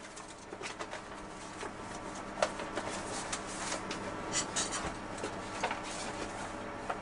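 Sheets of paper rustling and being leafed through by hand, with a few sharper clicks and knocks, over a steady hum inside an electric locomotive's cab.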